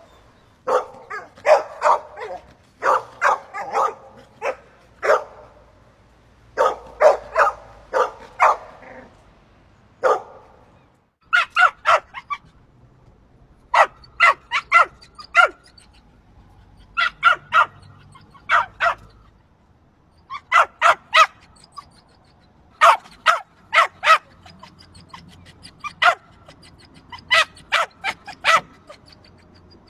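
Dog barking in repeated volleys of several quick barks with short pauses between. The barks are lower and fuller for the first ten seconds or so, then higher and sharper in tight groups of three to five about every three seconds.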